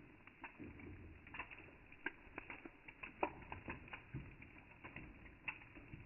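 Water drops pattering in irregular light ticks, several a second, with the sharpest tick about three seconds in and a few soft low thuds among them.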